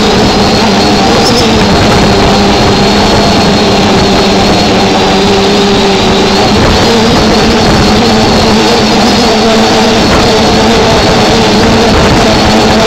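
A drone's motors and propellers buzzing steadily and loudly, heard close up from its own camera, with a rough rushing noise underneath. The pitch of the buzz shifts a little about six seconds in.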